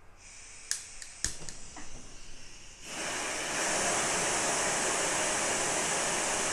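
Gas hissing from a Primus camping stove's burner as the valve is opened, with several sharp lighter clicks, then the gas catches about three seconds in and the burner runs with a loud, steady rushing that grows a little louder a moment later. Fed propane through an adapter, it burns with a much higher, stronger flame than on isobutane, from the propane's higher pressure.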